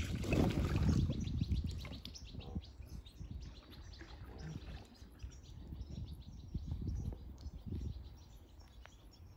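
Small birds chirping in quick short notes, over a low outdoor rumble. A louder rush of water-like noise fills the first second.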